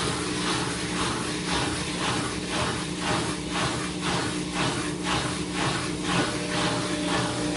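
GE GTW335ASN0WW top-load washer agitating a full load: a steady motor hum with an even swish of water and clothes about twice a second. The owner calls the machine really noisy.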